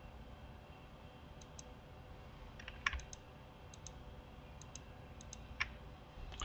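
Light clicks of a computer mouse and keyboard, a dozen or so at irregular intervals, some in quick pairs, over a faint steady hum.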